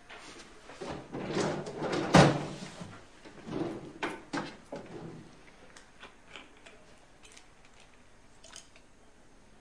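Desk drawer pulled open and rummaged through, with a sharp knock about two seconds in, then fainter small clicks and ticks as a pill bottle is handled and opened.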